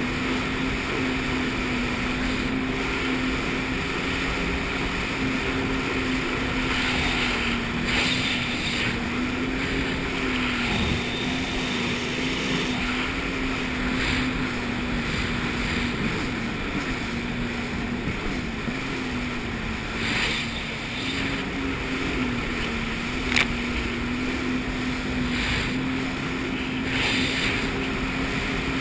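Jet ski engine running at a steady cruising speed, its hum holding one pitch with small dips, under a constant rush of water and wind, with surges of splashing every several seconds.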